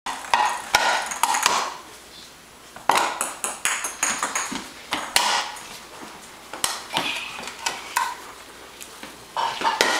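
Plastic toy golf club and plastic ball knocking on a hardwood floor: irregular sharp clacks and taps, a few with a short high ring about three to four seconds in.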